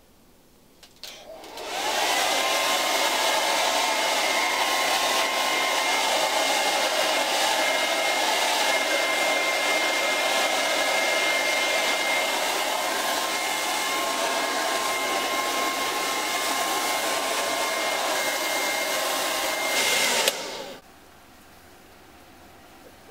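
Hair dryer switched on about two seconds in, running steadily as a loud rush of air with a faint whine, then switched off suddenly near the end.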